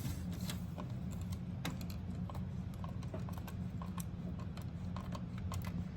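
Small irregular clicks and taps of a screwdriver and cooler mounting hardware as a CPU cooler is screwed down onto a motherboard, over a steady low hum.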